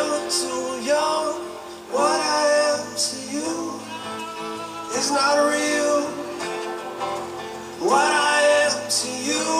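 Live acoustic ballad: a male and a female voice singing over acoustic guitar, with a long rising vocal swoop about every three seconds. It is heard as played through a television.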